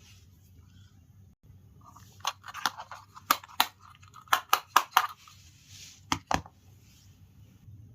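Small plastic toy kitchen pieces and their packaging being handled: a quick run of sharp clicks and taps with crinkling starting about two seconds in, then two more clicks a little after the middle.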